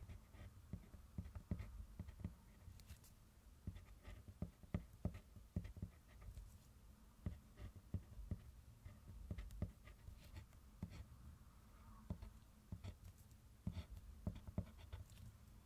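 A paper-wrapped Diamond colored pencil writing on kraft paper: faint, irregular short scratching strokes, one letter stroke after another, with soft knocks as the tip lands and lifts.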